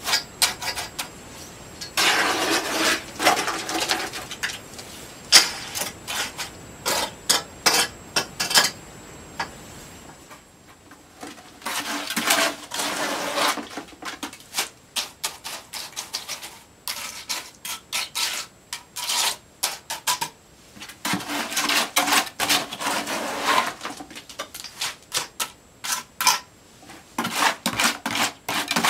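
Mortar being scooped out of a plastic bucket and worked in along the floor guide pipes: bouts of scraping broken by many quick sharp clicks and taps, in three busier stretches.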